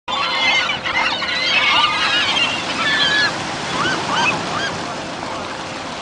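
A large flock of gulls calling over one another, many overlapping rising-and-falling cries, dense at first and thinning out after about three seconds, over the steady wash of waves on a rocky shore.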